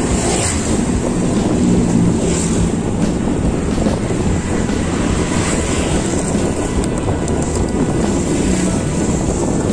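Steady rush of wind over the microphone mixed with the hiss of tyres on wet asphalt, from a road bike rolling downhill on a rain-soaked road.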